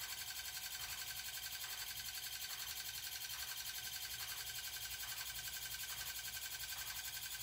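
Steady background hiss with a fast, even flutter in its level.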